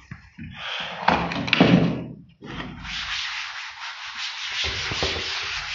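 Cloth wiping a chalkboard: a steady scratchy rubbing made of quick back-and-forth strokes, starting about two and a half seconds in. Before it come a few brief knocks and rustles.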